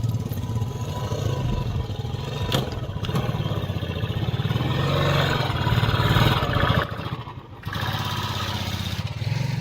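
Motorcycle engine running under varying throttle, growing louder about five to six seconds in and dropping away briefly near seven seconds before picking up again.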